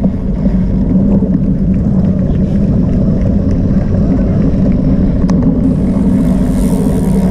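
Steady low rumbling noise with a constant low hum running under it; a faint high hiss joins near the end.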